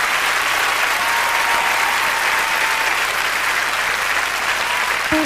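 Live concert audience applauding steadily as the singer stands on stage before the song, with a couple of long whistles from the crowd. The music begins right at the very end.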